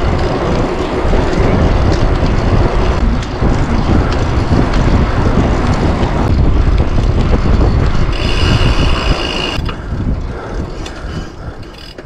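Wind buffeting a GoPro's microphone and bike tyres rolling on tarmac at downhill speed, a loud, steady rush. About eight seconds in, a high squeal sounds for about a second and a half. Near the end the rush fades away as the bike slows.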